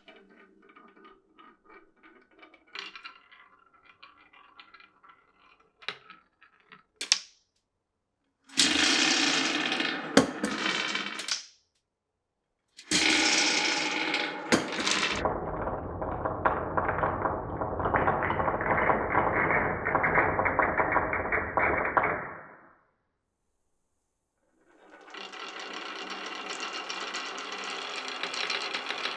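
Marbles rolling and clattering down a marble-run course: faint scattered clicks at first, then stretches of loud, dense rattling with a low rumble, and near the end a steady rolling sound that grows louder.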